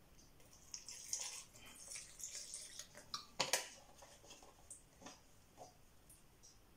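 Milk pouring from a carton into a plastic blender jar onto chopped fruit: a faint, splashy liquid trickle for about two seconds. A single sharp knock follows about three and a half seconds in, with a few light clicks after it.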